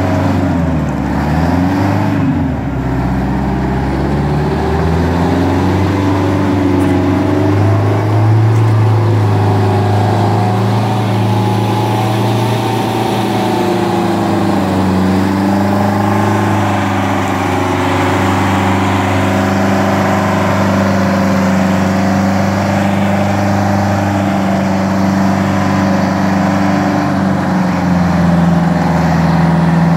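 Michigan Clark 175-A wheel loader's diesel engine running as the loader drives with its bucket raised. The engine pitch dips and comes back up about a second in, then holds mostly steady.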